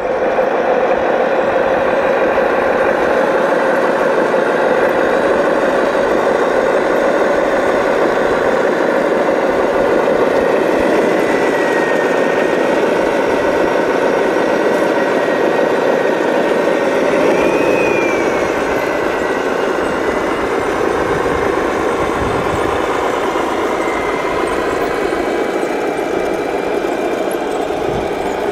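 Radio-controlled model heavy trucks running: a steady engine-like drone with a thin whine that rises and falls with speed, peaking about two-thirds of the way through.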